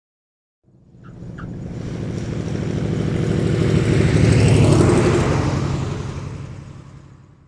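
Propeller aircraft flying past: its engine drone swells in about a second in, is loudest a little past the middle with the pitch falling as it goes by, and fades away near the end.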